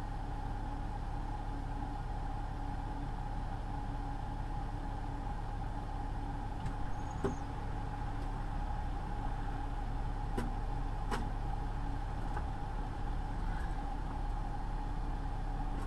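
Steady drone of a semi truck's engine and road noise inside the moving cab, with a few brief sharp clicks or rattles partway through.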